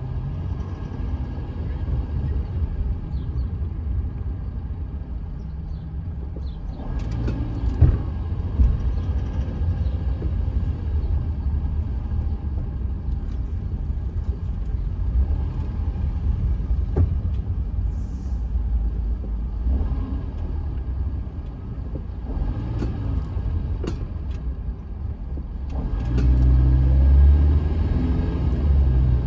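Steady low rumble of a car's engine and tyres heard from inside the cabin while driving slowly in city traffic, with a couple of sharp clicks about a quarter of the way in and the rumble growing louder near the end.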